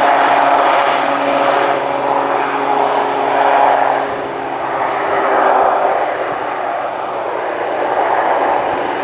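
Twin-engine turboprop aircraft rolling on the runway, a steady propeller and engine drone whose tones slide slowly down in pitch as it moves away. The loudness swells and eases a few times.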